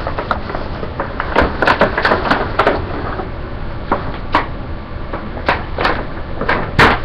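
Plastic shopping bag rustling and crinkling with scattered sharp knocks and bumps as items are pulled out of it by hand.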